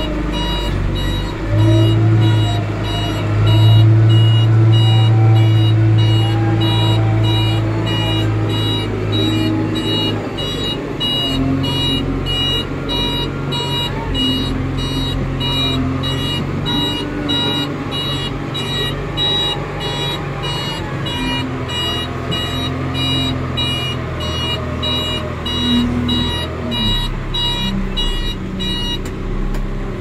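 JCB backhoe loader's diesel engine working under changing load, with its reversing alarm beeping steadily over it until the beeping stops near the end.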